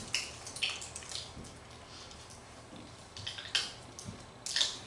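Small crackles and clicks of thin plastic and foil as a prefilled communion cup is opened by hand, its seal peeled back, in a few short spurts near the start, about three and a half seconds in and near the end.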